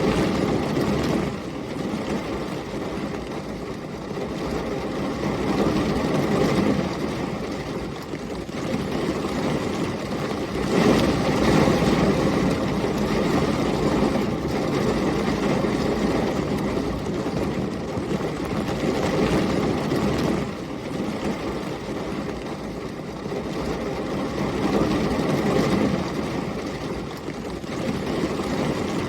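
Heavy rain and storm wind in a continuous rushing wash, with low rumbling swells that rise and fall every several seconds.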